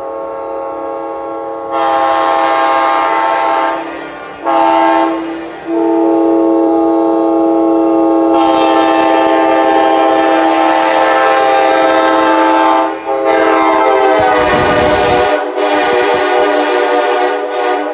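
Nathan Airchime K5LA five-chime locomotive air horn, an early-1990s tagless casting, sounding its chord in a series of blasts. Two short blasts come in the first few seconds, then one long blast held for about seven seconds, then more horn with short breaks near the end, with air hiss under the loudest parts.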